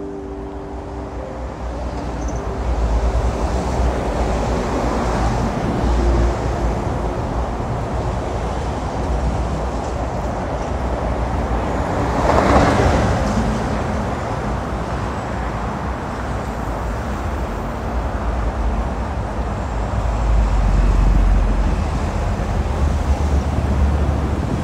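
Steady city street traffic noise with a deep rumble, growing louder about halfway through as something passes close.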